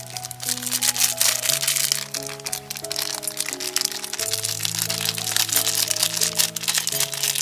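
A small plastic spice packet crinkling and crackling as it is handled and its dry seeds are shaken out into bowls of herbs, over background music of held notes.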